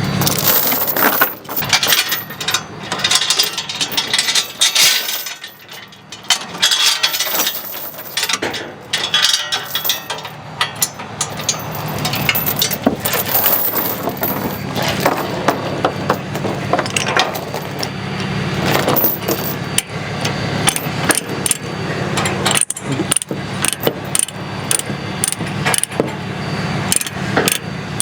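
Irregular metallic clicking and clanking of tie-downs being worked and tightened to bind a tractor down on a trailer, over an engine idling steadily.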